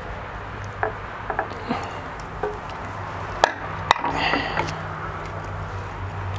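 Scattered metal clicks and knocks as the chrome primary cover of a motorcycle engine is handled and set aside, the two sharpest a little over three and a half seconds in, followed by a brief scrape. A steady low hum runs underneath.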